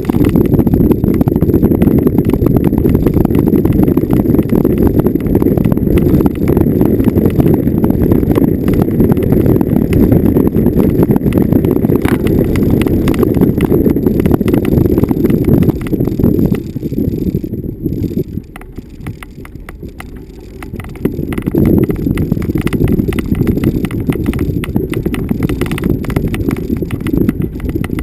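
Vehicle driving over bumpy off-road ground: a dense, continuous low rattling and knocking. It eases off for a few seconds about two-thirds of the way through, then picks up again.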